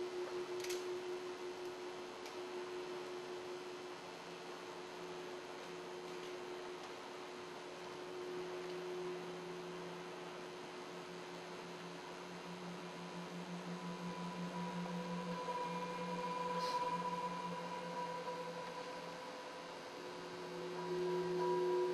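Sustained drone of the dance's accompaniment music: several steady tones held together, the lowest one pulsing and swelling in the middle, with a higher tone joining about two-thirds of the way through.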